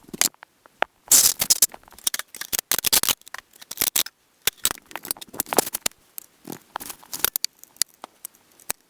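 Close-range handling noise: irregular scraping, rustling and clicking of objects being picked up and moved about, in short scratchy clusters with brief pauses between them.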